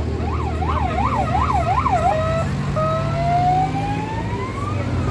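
Electronic vehicle siren sounding a fast yelp, about three up-and-down sweeps a second, then switching about two seconds in to a slow wail that rises steadily until near the end. Underneath, the low steady hum of off-road vehicle engines in a slow-moving convoy.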